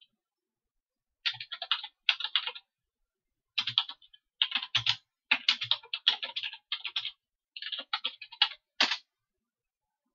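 Computer keyboard keys clicking in quick runs with short pauses between them as a command is typed, ending with a single separate keystroke near the end.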